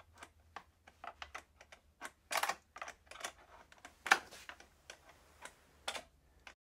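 An 8 mm wrench working a bolt on a side-by-side's plastic front-end panel: irregular metal clicks and ticks, the loudest a little after four seconds in. The sound cuts off suddenly near the end.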